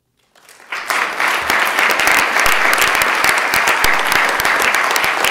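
A roomful of people applauding, the clapping swelling up within the first second and then holding steady and dense.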